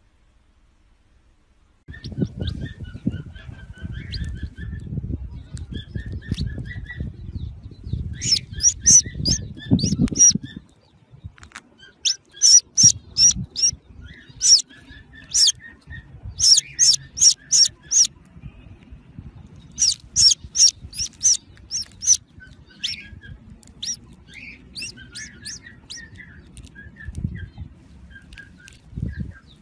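Newly hatched chick, still in its cracked eggshell, peeping in quick runs of high, sharp chirps, loudest through the middle. A low rumble runs under the first several seconds of peeping.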